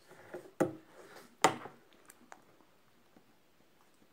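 Two sharp clicks or taps, about a second apart in the first second and a half, with faint handling noise around them, then a quiet room with a few tiny ticks.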